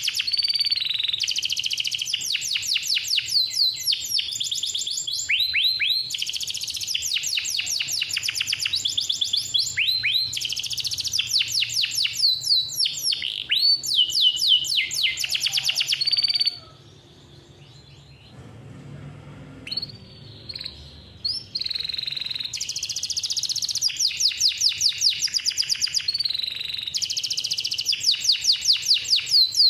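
Male domestic canary singing: fast trills and long rolls of rapidly repeated high notes. The song breaks off for a few seconds about halfway through, with only a few faint notes, then starts again.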